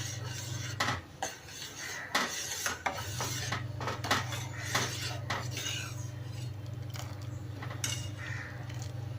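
A metal spoon stirring the herbal decoction in a pot, clinking and scraping against its sides in irregular strokes, to mix in the jaggery just added. A steady low hum runs underneath and drops out briefly about a second in.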